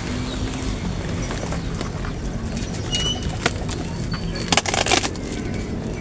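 Cardboard parcel packaging being pulled apart and torn by hand, rustling, with a louder tearing burst about three quarters of the way through, over a steady low hum.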